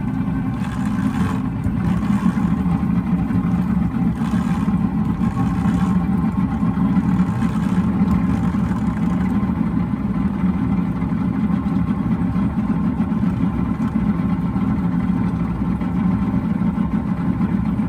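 Boston Whaler Outrage's outboard motor running steadily as the boat cruises: an even low drone with a steady rush over it.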